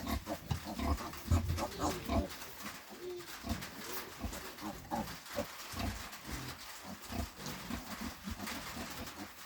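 A sow grunting in short, low, repeated grunts while nursing her day-old piglets.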